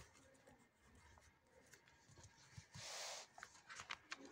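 Faint handling of paper on a textbook page: light rubbing and small taps, with one brief rustle about three seconds in.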